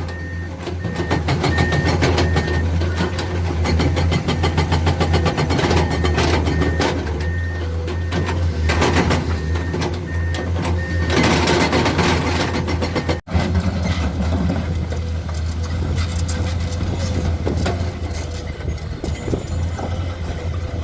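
Heavy diesel engines of an excavator and a dump truck running steadily with a deep hum and clatter, two louder noisy surges around the middle. A faint, evenly repeated beep sounds through the first half, and the sound drops out for an instant about 13 seconds in.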